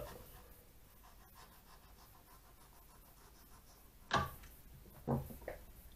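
Knife slicing a dogfish fillet away from the cartilage on a wooden chopping board, faint scraping and rubbing, with two short louder sounds about four and five seconds in.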